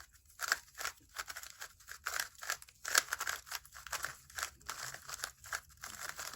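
Magnetic-core QiYi X-Man Tornado V2 3x3 speedcube being turned quickly by hand: a quiet, uneven run of clicking, sliding plastic layer turns, several a second.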